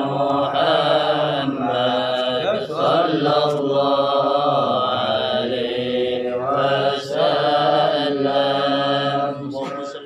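Voices chanting a salawat on the Prophet Muhammad, drawing each syllable out in long held, gliding notes with short breaths between phrases.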